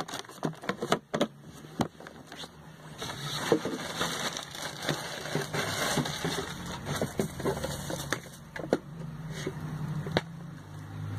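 Plastic food-storage containers and lids being handled: a run of light plastic clicks, taps and knocks, with a stretch of rustling in the middle as the packaging is handled.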